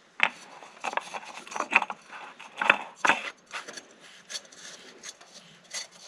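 Fram PH3593A oil filter being spun on by hand: a string of short, uneven rubbing and scraping strokes as the hand slips around the canister, threading it onto its mount.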